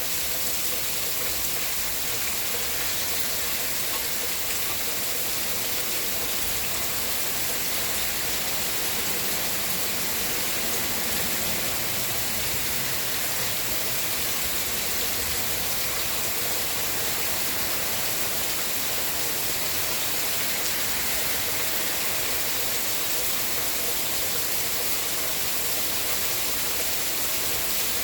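Steady rainfall: a constant, even hiss of rain, heaviest in the high frequencies.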